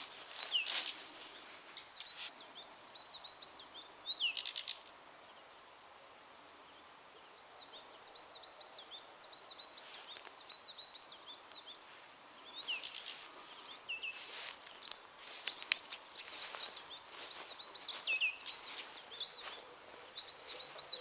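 Small songbirds chirping and singing in quick runs of high notes, with sharper short calls mixed in and a brief lull a few seconds in.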